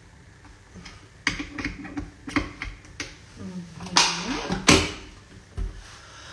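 Kitchen equipment being handled and set down on a wooden worktop: a string of separate clicks and clacks, the loudest two about four and five seconds in, with a short low tone that slides upward between them.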